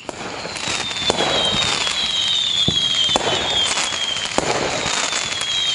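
Fireworks sound effect fading in: a steady dense crackle with several sharp bangs and repeated whistles falling in pitch. It is the alarm that the countdown timer has reached zero.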